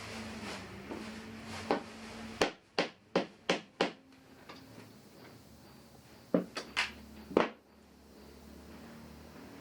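A series of sharp knocks on wood: five quick ones about a third of a second apart, then a second cluster of four a few seconds later, over a low workshop hum.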